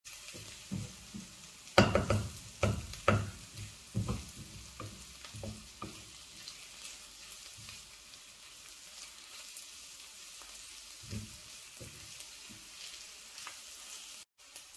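Sliced onions sizzling in oil in a stainless steel pan, fried until browned, with a steady hiss. A wooden spatula stirring them knocks and scrapes against the pan, most often in the first six seconds and a few times again later.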